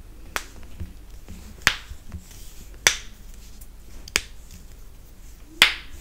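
Toe joints cracking as each toe of one foot is bent by hand in turn: five sharp pops, roughly one every second and a quarter, one per toe.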